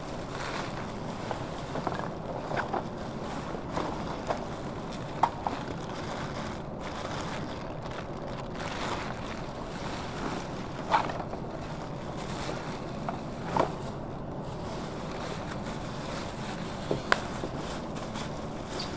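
Black plastic bin bags rustling and crinkling as a gloved hand rummages through them in a large plastic bin, with a few sharp cracks or knocks scattered through. A steady rushing noise runs underneath.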